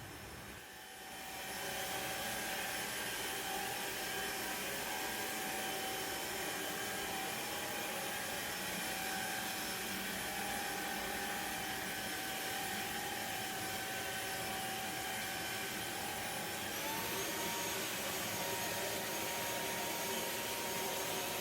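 Vacuum cleaner switched on about a second in and running steadily with a motor whine, which steps up to a higher pitch about seventeen seconds in.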